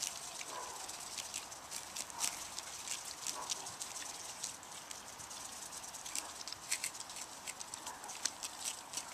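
Mute swans tearing and cropping grass with their bills: a run of crisp, irregular clicks and snips, several in quick clusters.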